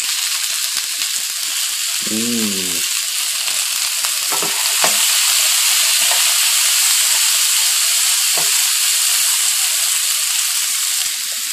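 Green beans sizzling in hot canola oil in a nonstick wok, a steady frying hiss that grows louder about halfway through. A wooden spatula stirs and scrapes them across the pan.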